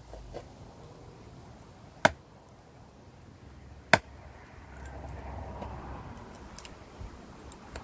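SOG Tech Bowie knife chopping into wood: two sharp strikes about two seconds apart, followed by a few seconds of quieter rustling.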